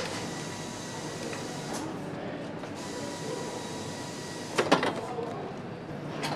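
Factory machinery running with a steady hum and faint high whine, a few brief sharp clicks, and a louder clattering knock a little over four and a half seconds in.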